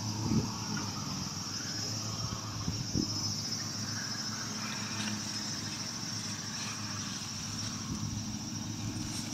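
A steady high-pitched drone of insects over a low, even engine-like hum, with a couple of dull footsteps on leaf litter about half a second and three seconds in.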